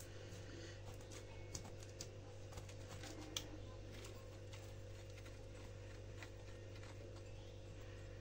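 Metal spoon scooping a dry ground fig-and-sesame mix from a plastic tub into a small bowl, giving a few faint clicks and light scrapes over a steady low hum.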